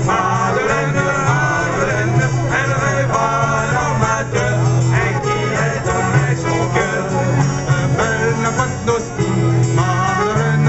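Live band with singers playing a dance tune, amplified through loudspeakers, with a strong steady bass.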